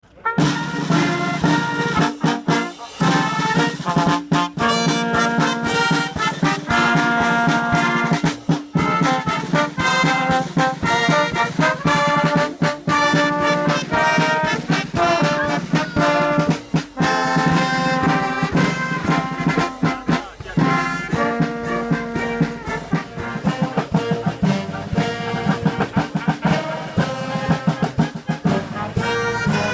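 Brass band playing: trumpets, trombones and saxophone carrying the tune over a steady beat of snare and bass drum.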